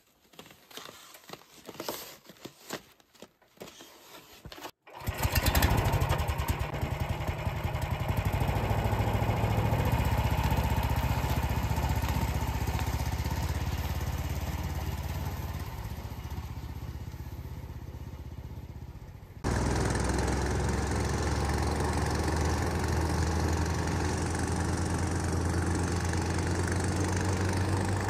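A few faint knocks and clicks, then an engine comes in about five seconds in and runs steadily with a low, even hum.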